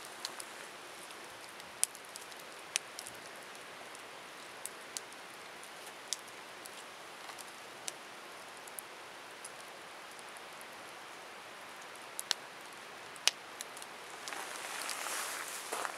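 Wood campfire crackling, a steady hiss broken by sharp, irregular pops. Near the end a louder rustling and crackling sets in.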